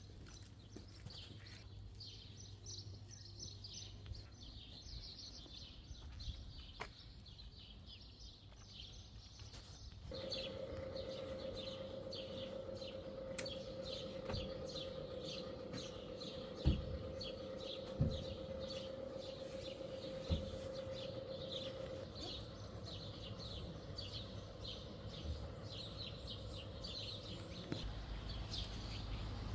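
Songbirds singing, a dense run of quick high chirps and trills. About ten seconds in, a steady hum joins, lasting until near the end, with three short thuds in the middle.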